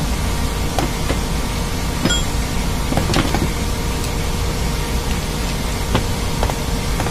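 Steady drone of running machinery with a faint constant hum. Over it come scattered sharp metallic clicks and knocks, the densest a little after the middle, as a wrench works the screw of a gear puller drawing a bearing off an electric motor's shaft.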